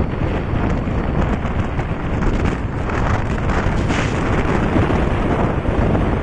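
Wind buffeting the microphone of a camera in a moving vehicle, a loud rushing with gusts, over the low rumble of the ride along the road.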